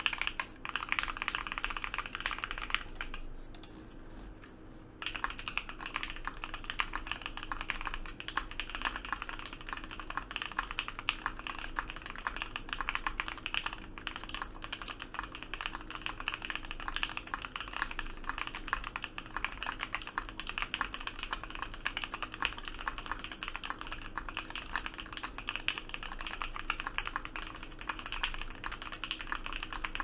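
Vega mechanical keyboard with OP Black switches, an aluminium plate, ePBT keycaps and full foam, typed on fast and continuously as a dense stream of key clacks. There is a short lull about three seconds in, after which typing picks up again.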